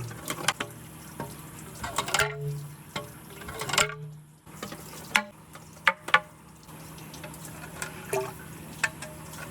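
Water running down a wooden gutter slope, carrying marbles that click and knock against each other and the wood, with a few sharp clacks about five to six seconds in.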